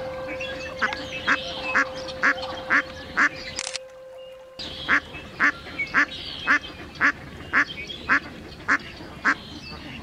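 A duck quacking in a regular series of short calls, about two a second, broken once by a brief gap near the middle.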